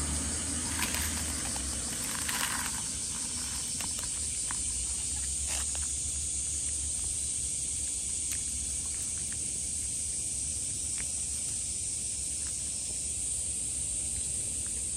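Outdoor ambience: a steady high hiss over a low rumble, with brief rustling in the first few seconds and a few faint scattered clicks.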